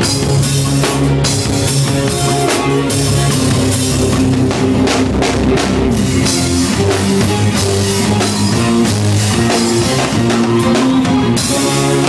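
Live band playing, heard from beside the drum kit on stage: the drums are loud and up front over keyboards and a moving bass line.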